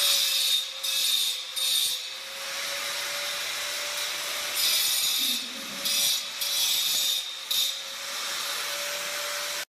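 A woodworking tool working wood in irregular scraping strokes, each lasting under a second to about a second, over a steady faint hum. The sound cuts off abruptly near the end.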